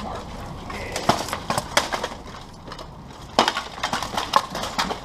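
Steel weapons striking plate armour and armour clanking as two armoured fighters trade blows and grapple: two flurries of sharp metallic hits, the first about a second in, the second about three and a half seconds in.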